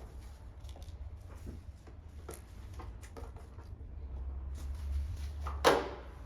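Quiet kitchen handling sounds while orange jelly is laid onto a cake layer: light scrapes and taps over a steady low hum, with one sharp, louder knock about five and a half seconds in.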